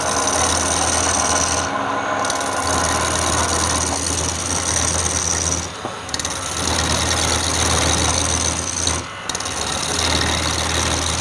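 A power tool working wood: a steady motor hum under a loud abrasive hiss. The hiss drops out briefly three times, about every three and a half seconds, as the tool comes off the wood.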